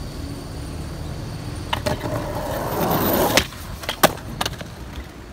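Skateboard wheels rolling on pavement, growing louder about two seconds in and stopping abruptly, followed by a few sharp clacks of the board, the loudest about four seconds in.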